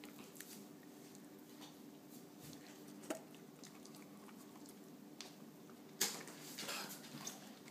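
Quiet room tone with a faint steady hum, one small click about three seconds in, and a brief soft rustling noise about six seconds in.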